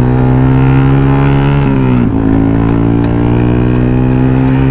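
Yamaha Sniper 150's single-cylinder four-stroke engine running loud through an SC Project aftermarket exhaust. It holds a steady pitch, dips briefly about two seconds in, then comes back up.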